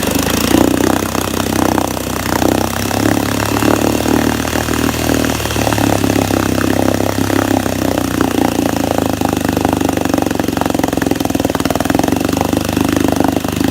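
1964 Wards Sea King 3 hp two-stroke outboard motor running steadily at a fairly even speed, its mixture knob just turned back toward rich after it ran lean and sneezed.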